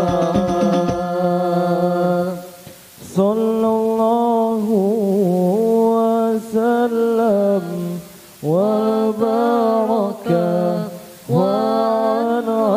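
Sholawat devotional singing: a drum-backed passage ends with a held note about two seconds in, then a voice sings long, ornamented Arabic phrases unaccompanied, with short breaths between them.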